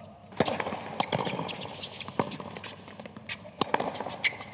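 Tennis ball bounced on a hard court before a serve: a series of sharp taps at uneven intervals over a light background hum.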